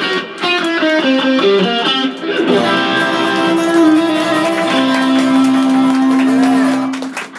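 Acoustic guitar playing an instrumental passage of a live rock-and-roll song: a run of picked notes, then a long held note for the last couple of seconds.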